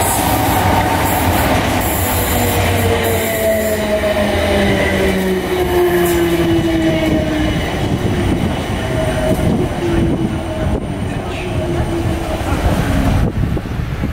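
Class 455 electric multiple unit running into the platform. Several whining tones fall slowly in pitch as the train slows, over steady wheel and rail noise.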